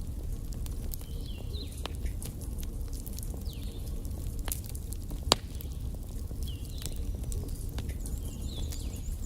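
Wood fire burning in a fireplace: irregular crackles and pops from the burning logs over a steady low rumble of the flames, with one sharp pop about five seconds in.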